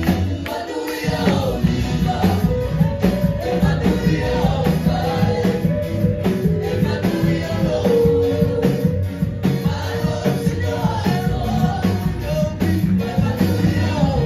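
Live church worship band performing a Samoan gospel song through a PA: singing over guitar and a steady beat, the low end dropping out briefly just under a second in.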